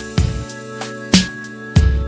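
Background music: an instrumental track with sustained notes and a steady drum beat.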